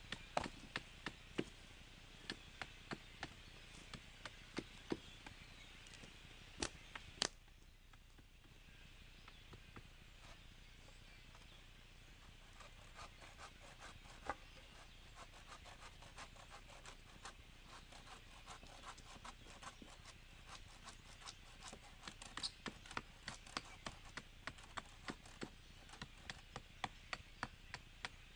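Faint chatter of a large flock of blackbirds, with many short sharp clicks and knocks at an irregular pace. The chatter fades about seven seconds in, and the clicks thin out and then come thick again near the end.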